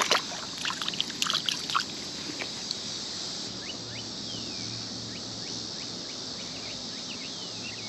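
Crickets chirring steadily and high. In the first two seconds come a quick run of knocks and splashes as a hooked freshwater drum is unhooked and let back into the water.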